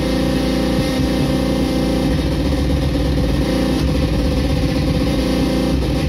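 Circuit-bent Meowsic cat toy keyboard putting out a loud, steady, dense buzzing drone over one held note, its circuit modified to distort and glitch the sound.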